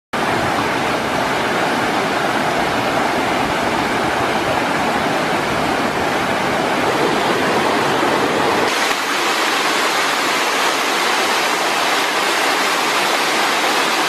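Waterfall and cascading mountain stream rushing over rocks, a steady full rush of water. About nine seconds in the deep rumble drops out suddenly and a lighter rush of water over rocks goes on.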